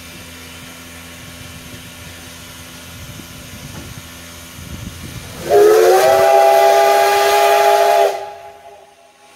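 Soviet class L (Л) steam locomotive standing with steam hissing low. About five seconds in, its steam whistle sounds one loud chord of several tones, sliding up at the start and cutting off sharply about two and a half seconds later.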